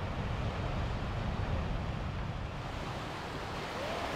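Wind blowing across the microphone on an open shore. About halfway through, surf takes over: waves breaking and washing up on a sandy beach.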